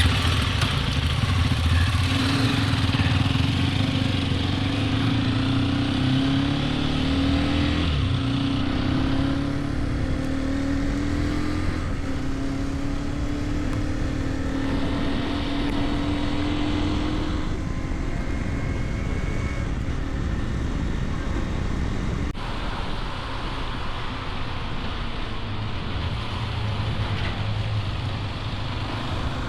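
Hero XPulse 210's single-cylinder engine on the move, its pitch climbing in two long pulls with a drop about eight seconds in as it shifts up, then running steadier, over constant wind and road noise.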